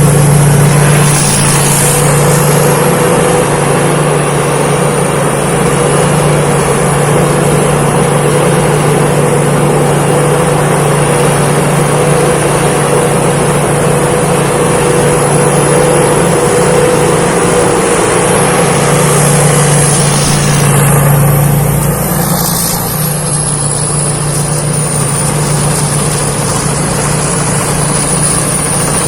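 Thai Seng Yont rice combine harvester running steadily while harvesting: a constant engine drone with a high whine above it. It eases a little a bit over two-thirds of the way through.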